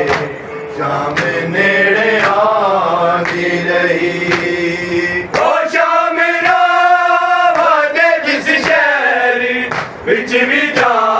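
Group of men chanting a noha (Shia mourning lament) together, the pitch of the melody rising and falling, with matam: open palms striking chests in a steady beat about once a second.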